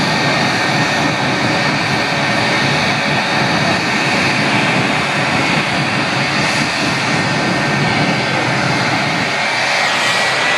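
Jet car's turbine engine running loud and steady, a roar with a high whine on top. Near the end the whine begins to rise in pitch as the engine spools up.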